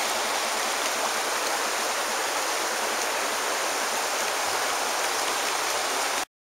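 Shallow river running over a rocky bed: a steady hiss of flowing water that cuts off suddenly near the end.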